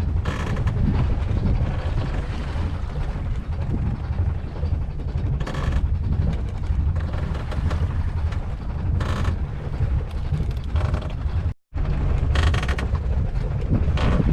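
Fishing boat at sea: a steady low rumble with wind buffeting the microphone, broken by a few short bursts of hissing noise. The sound cuts out for an instant about two-thirds of the way through.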